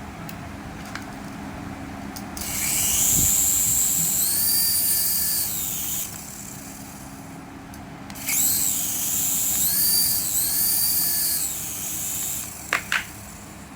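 Small electric toy motor whirring in two spells of about four seconds each, its high whine rising, wavering and dropping away each time.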